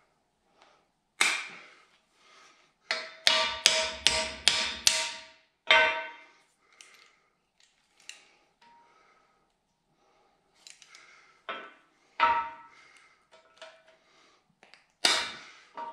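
Hand hammer blows on metal against a tractor front axle, each with a short metallic ring: one strike about a second in, a quick run of about six blows at roughly four a second, then lighter taps and a few more blows near the end. This is the work of driving out a stubborn drive-in grease fitting.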